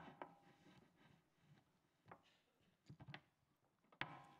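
Faint knocks, clicks and rustles of a microphone being handled. The sound cuts in suddenly with a sharp click, with a few more sharp knocks about two and three seconds in and a stronger knock about four seconds in.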